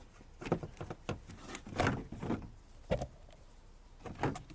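Plastic trim clips and the plastic cowl panel clicking and knocking as they are handled and worked loose, about six sharp separate knocks.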